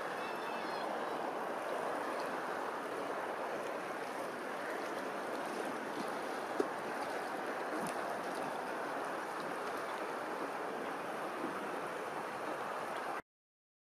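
Steady wash of open water and wind. A faint, high, short bird call comes about half a second in, and a single sharp click near the middle. The sound cuts off abruptly just before the end.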